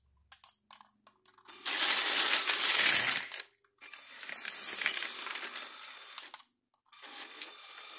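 A Lego train's plastic wheels rolling along plastic Lego track: a rattling noise in three stretches with short breaks between, loudest in the first. A few light clicks come before it.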